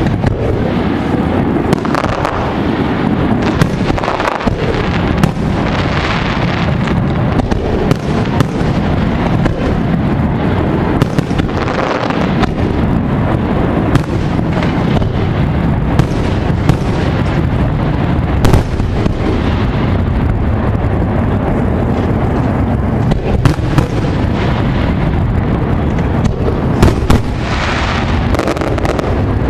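Fireworks display: aerial shells bursting one after another, many sharp bangs over a continuous low rumble.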